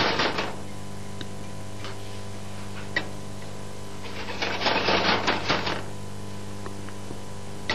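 A fork scraping round a metal frying pan as beaten eggs are stirred while they set into an omelette: a short run of quick scratching strokes at the start and another in the middle, with a few single clicks between.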